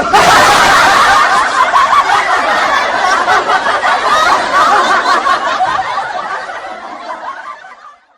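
Laughter sound effect: many voices laughing together, starting suddenly and fading out over the last couple of seconds.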